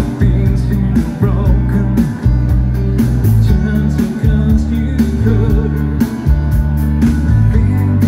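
Dansband music: a band playing with bass, drums and guitar at a steady beat, with a voice singing at times.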